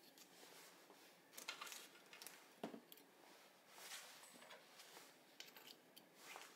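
Faint, scattered clicks and light taps of small parts being handled, one sharper tap about two and a half seconds in.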